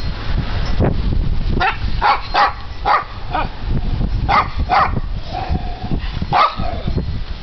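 Terriers barking at play: a run of short, sharp barks, mostly in quick pairs, starting about a second and a half in.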